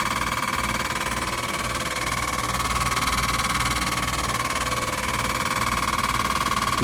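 Shinco 12,000 BTU portable air conditioner running: a steady, loud whine over fan noise and a low hum, loud enough that nobody can sleep through it.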